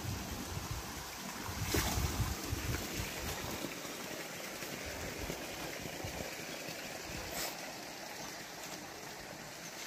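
Steady outdoor rushing hiss, with uneven low rumbling in the first few seconds and two brief scuffs, about two seconds in and again near the end.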